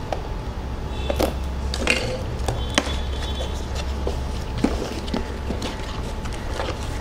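Hands unpacking a CCTV camera from its cardboard box: scattered light knocks and clicks of cardboard and plastic packaging being handled, over a steady low rumble.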